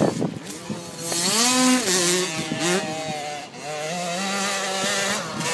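KTM 50 minibike's small single-cylinder two-stroke engine revving around the track, its pitch climbing and falling several times from about a second in.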